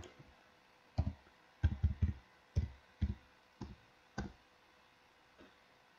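Computer keyboard keystrokes: about eight short, uneven taps over three seconds as a word is typed, and one faint tap near the end.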